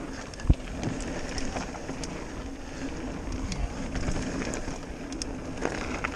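Mountain bike rolling fast down a dirt trail: steady rumble of tyres on dirt and rattling of the bike, with one hard knock about half a second in.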